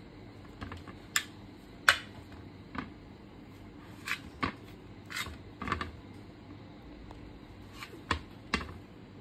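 A kitchen knife cutting the crusts off slices of bread: about ten short, irregular crunches and clicks as the blade goes through the crust, the loudest about two seconds in.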